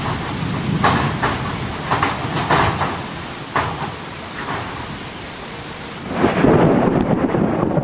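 Thunderstorm: rain falling steadily with several sharp cracks, then a loud rumble of thunder swelling about six seconds in.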